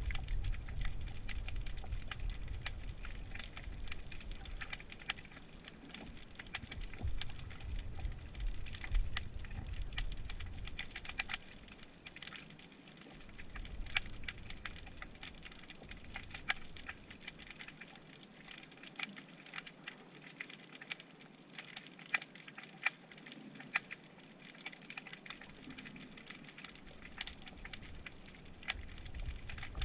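Dense underwater crackling of many sharp, irregular clicks, typical of snapping shrimp, picked up through a GoPro's waterproof housing on the sea floor. A low rumble of water movement sits under the clicks for the first dozen seconds, dies away, and returns near the end.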